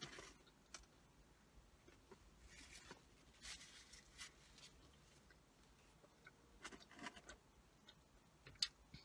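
Faint eating sounds: soft chewing and mouth noises with a few light rustles and small clicks, one sharper click near the end.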